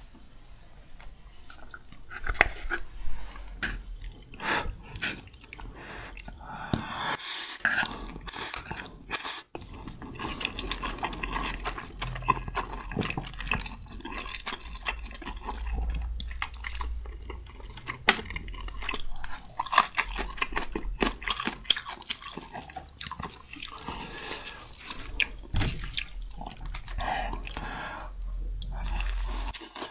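Close-miked eating sounds: chewing and slurping spicy stir-fried ramen noodles, with many irregular wet mouth clicks and smacks. Near the end comes biting into a tomahawk steak.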